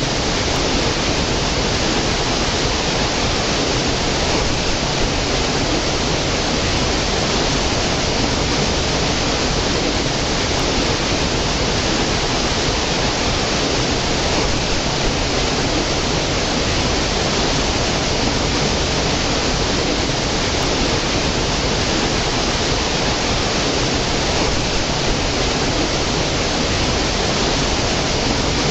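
Small stream cascading over mossy rocks into a pool: a steady, even rush of falling water that stays the same throughout.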